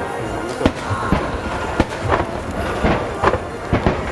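Aerial fireworks shells bursting in quick, irregular succession: a string of sharp bangs over a continuous rumble of echoing explosions.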